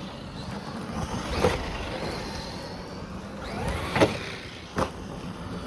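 Traxxas Maxx RC monster truck driving, its electric motor whining up and down in pitch as the throttle varies, with sharp knocks about one and a half, four and five seconds in, the one at four seconds loudest.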